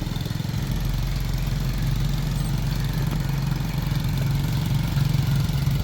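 Motorbike tuk-tuk's small engine running steadily, a low even hum.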